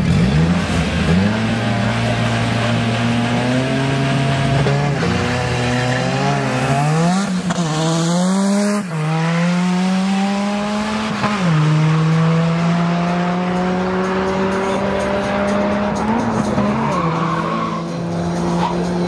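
Drag-race cars launching from the start line at full throttle, their engines revving hard and climbing through the gears. The pitch rises and drops back sharply at each of several upshifts, then holds in a long, slowly rising pull in top gear.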